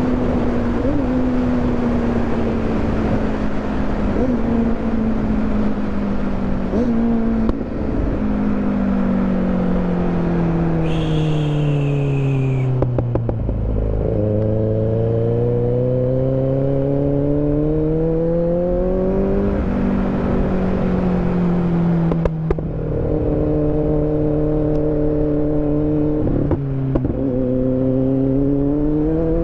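Kawasaki motorcycle engine heard on board while riding. The engine note falls slowly for the first half as the bike slows, then rises under acceleration, drops in two steps at gear changes, holds steady and climbs again near the end. A brief high whine sounds near the middle.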